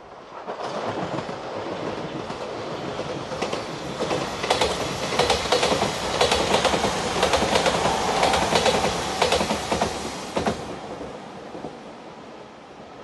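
JR Shikoku Shiokaze limited express electric train passing at speed. Its rushing noise rises about half a second in, and the wheels click-clack over rail joints through the loud middle. The sound drops off about ten seconds in and fades as the train moves away.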